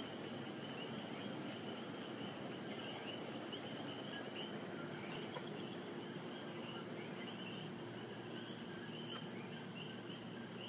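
Steady nighttime chorus of insects, a dense, high-pitched chirping that repeats without pause.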